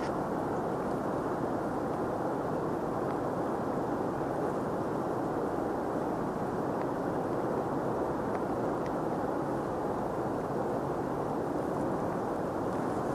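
Mountain stream water rushing steadily, an unbroken hiss of flowing current.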